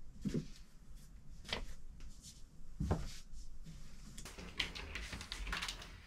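Clothes and wardrobe being handled during sorting: fabric rustling with two dull thumps, one just after the start and one about three seconds in, then a busier run of rustling and light clicking from about four seconds on.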